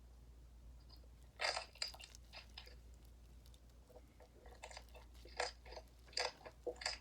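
Homemade glue-and-activator slime being squeezed and pressed by hand, giving scattered short crackling pops, the loudest about a second and a half in and a cluster near the end.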